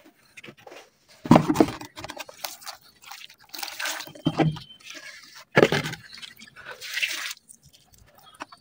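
Wet red dirt being mixed with water, squelching and splashing in several short, uneven bursts.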